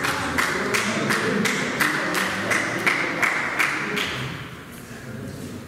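A quick, even series of sharp taps or claps, about three a second, that stops about four seconds in.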